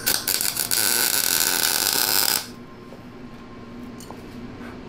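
Electric welding arc on the mini bike's brake bracket: one burst of about two and a half seconds that cuts off suddenly.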